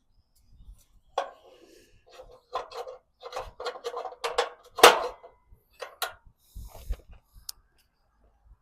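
Steel pieces clanking and knocking together in an irregular string of metallic hits with some scraping. The loudest knock comes about five seconds in.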